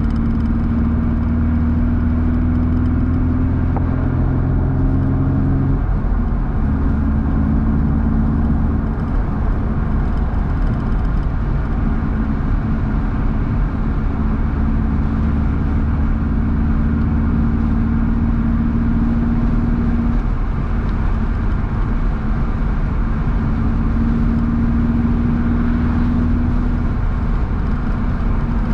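BMW roadster's engine running at a steady cruise, heard on board with road and wind noise. The engine note breaks off about six seconds in and again about twenty seconds in, then settles back to a steady hum.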